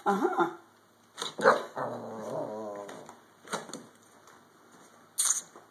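Small shih tzu–poodle mix puppy vocalizing: short yips, then a wavering, warbling whine about a second long. A short sharp noise near the end.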